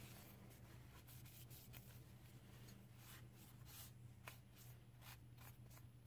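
Faint rubbing of a shop towel wiping a Damascus steel knife blade, in quick irregular strokes, over a steady low hum.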